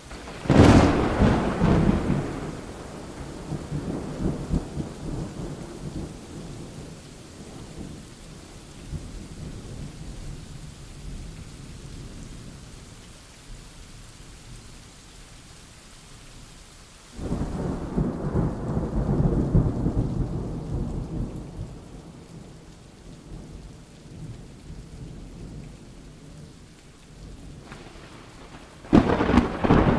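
Thunderstorm: a loud thunderclap about half a second in that rolls off into long rumbling, a second peal starting abruptly about 17 seconds in, and a third sharp clap near the end, over steady rain.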